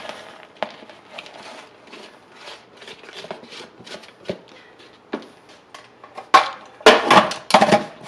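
Shredded cheddar brushed by hand off a paper plate into a plastic food processor bowl, with light rustling and small taps. Near the end, louder clattering knocks as the processor's plastic lid is fitted onto the bowl.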